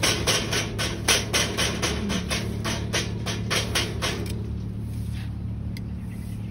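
Background music: a fast, even percussive clicking, about five beats a second, over a steady low drone, fading out after about four seconds.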